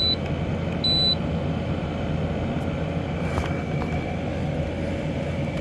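Window air conditioner running on low in fan-only mode, a steady hum with a faint whine. Two short high beeps sound about a second apart at the start.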